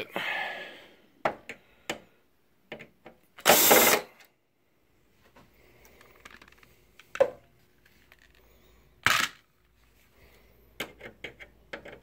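A cordless drill-driver runs in two short bursts while backing out screws, about three and a half seconds in and again near nine seconds. Between the bursts there are scattered small clicks and taps of screws and plastic parts.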